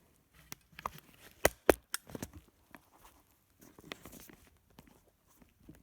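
Scattered clicks, knocks and rustles of objects being handled, with two sharp knocks close together about a second and a half in.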